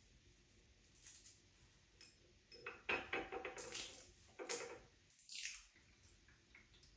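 A few short knocks and clatters of household objects being handled, the loudest about three seconds in, with quiet gaps between them.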